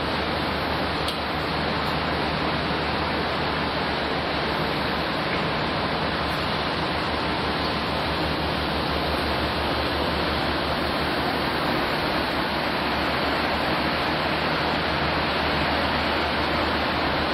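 Steady, even rushing noise of outdoor city ambience with a faint low hum underneath, unchanging throughout.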